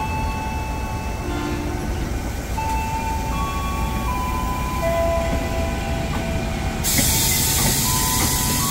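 KRL Commuter Line electric multiple unit, a second-hand Japanese commuter train, running slowly past the platform. Its rumble carries a series of steady high tones that shift pitch every second or so. About seven seconds in, a loud hiss joins it.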